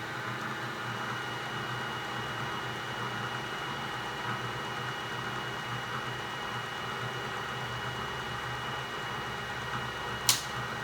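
Bridgeport 1J vertical milling machine running steadily with the spindle turning and the quill power feed engaged, a constant even whine. One sharp click about ten seconds in.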